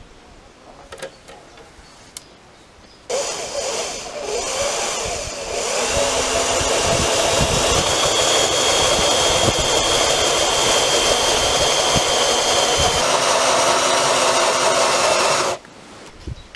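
Power drill with a Forstner bit boring into a wooden slat countertop. Faint clicks at first; about three seconds in the drill starts suddenly, runs unevenly for a couple of seconds as the bit bites, then runs steadily under load. It stops suddenly about a second before the end.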